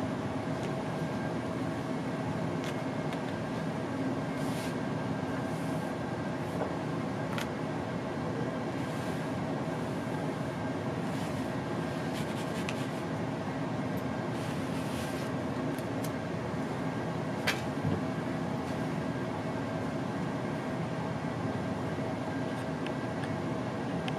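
Steady, even background hum like a fan or air conditioner, with a few light clicks as playing cards and pennies are handled on a cloth-covered table, the sharpest about three-quarters of the way through.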